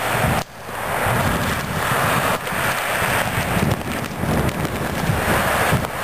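Blizzard wind gusting against the microphone: a rough, fluttering rumble over a steady hiss, with a brief drop about half a second in.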